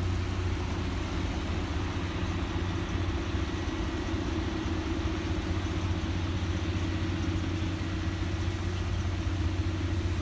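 Steady low rumble of city traffic, with an even engine hum under a constant hiss.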